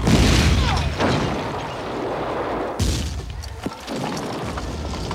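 Battle sound effects: sudden loud blasts with crashing, breaking debris. The first hits at the start, with a falling whistle after it, another comes about a second in, and a sharp one near three seconds.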